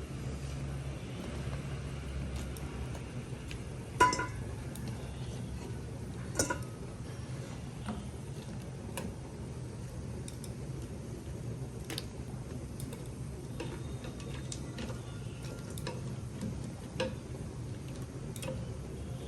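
Scattered light clicks and taps, with two sharper clinks that ring briefly about four and six and a half seconds in, over a steady low hum.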